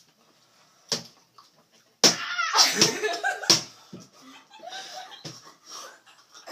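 Hands slapping a wooden tabletop: one sharp slap about a second in, then a louder flurry of slaps and knocks mixed with children's yelling from about two seconds in, ending in another sharp slap. A child reacting to an extremely sour candy.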